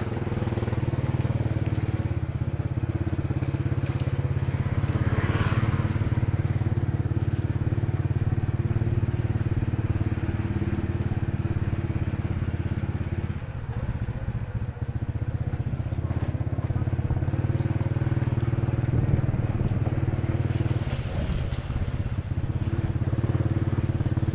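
A small engine running steadily at low speed, a constant low rumble with a fixed pitch that eases briefly about halfway through and again near the end.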